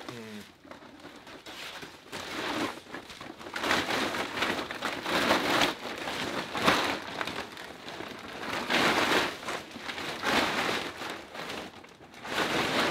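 A large white mesh-reinforced plastic tarp being unfolded and shaken out, crinkling and rustling in repeated swells that start about two seconds in.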